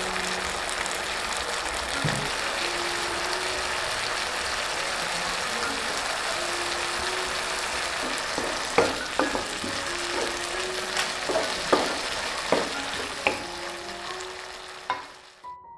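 Green beans, tofu and carrot sizzling as they are stir-fried in a nonstick wok, with a wooden spatula knocking and scraping against the pan in a run of sharp clicks in the second half. The sizzle cuts off suddenly near the end.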